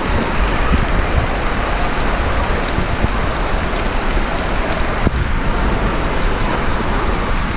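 Steady loud rush of water and echoing din of an indoor water park, with a sharp knock about five seconds in.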